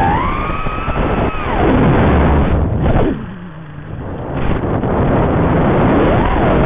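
FPV racing quadcopter's brushless motors and propellers whining, the pitch sweeping up and down with the throttle over a hiss of noise. About three seconds in the throttle is cut for a flip: the whine drops in pitch and the sound falls away for a second or so, then the motors spool back up.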